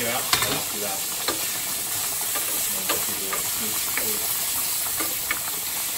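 Diced bacon sizzling in a stainless steel skillet while a wooden spoon stirs it, with a steady hiss and several short knocks of the spoon against the pan.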